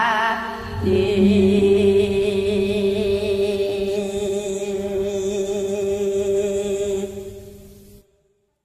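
A girl's sung note in a Javanese gendhing song ends with vibrato about half a second in. The karaoke backing music then holds a steady final chord, which fades away and stops shortly before the end.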